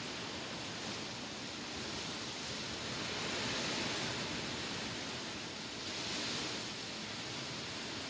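Wind rustling through tall grass: a steady, soft hiss that swells twice in gusts, once around the middle and again about three quarters of the way through.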